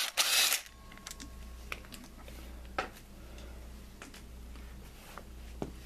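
An impact wrench runs for about half a second, spinning the crankshaft pulley bolt off a Honda D16 engine. A few light clicks follow as the socket and bolt are handled, over a low steady hum.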